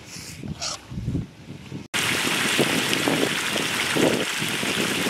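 Chicken stew with peppers sizzling and bubbling in a large wok over a fire: a steady hiss with soft pops that comes in suddenly about two seconds in. Before it, wind on the microphone.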